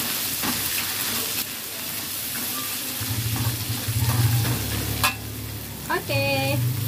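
Winged beans sizzling in a steel wok while a metal spatula stirs and scrapes them, with scattered clicks of the spatula against the pan; the heat has just been turned off, so this is the sizzle left in the hot pan. A low steady hum comes in about halfway through, and a short voice sound is heard near the end.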